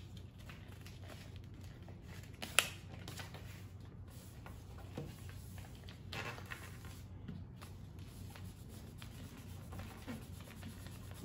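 Paper being folded and creased by hand on a tabletop: soft rustling and scraping over a steady low hum, with one sharp tap about two and a half seconds in.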